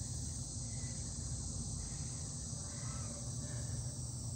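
Crickets trilling steadily in the evening, with a few faint chirps, over a low steady rumble.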